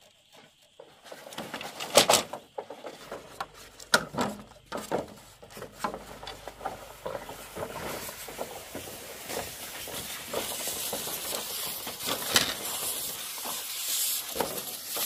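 Long green bamboo poles dragged across bare dirt, a steady scraping hiss with scattered clicks that builds through the second half. A few sharp knocks of the poles come first, about two and four seconds in.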